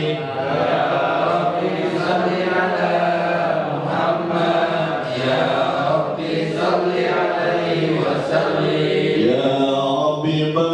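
Arabic shalawat, blessings on the Prophet Muhammad, chanted in long, drawn-out melodic phrases with held notes.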